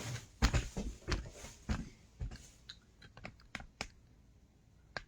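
A string of irregular light clicks and knocks, like objects or a device being handled, the loudest about half a second in, then sparser sharp clicks until it goes quiet near the end.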